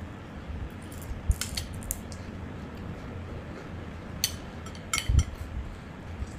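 Metal spoon and fork clinking against a ceramic soup bowl while eating, with short sharp clinks a little over a second in and again around four to five seconds in, over a low steady hum.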